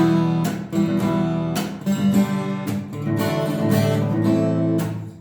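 Acoustic guitar strummed with a pick in a steady rhythmic pattern of chord strokes, the chords ringing between strokes; the playing stops abruptly near the end.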